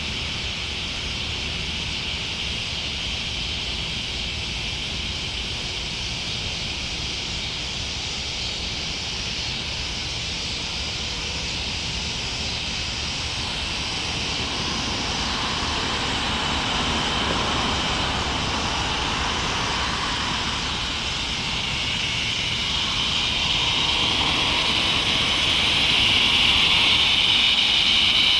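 Chorus of northern dusk-singing cicadas (Megatibicen auletes) massed in an oak, droning steadily and growing louder over the last few seconds.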